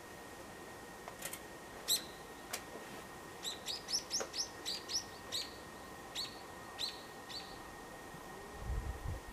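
A small bird chirping: short high calls, each a quick downward sweep, a few single ones at first and then a run of about two a second. Some low rumbling near the end.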